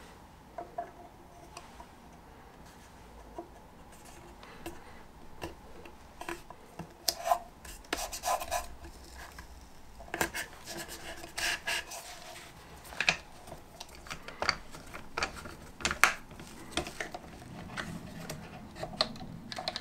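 Hand tools working wood: irregular rubbing and scraping strokes mixed with sharp clicks and knocks, sparse for the first few seconds and busier from about seven seconds in.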